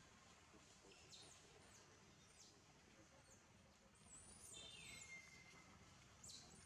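Near silence with faint high chirps scattered through it, and about four seconds in a whistle-like call that falls in pitch and then holds.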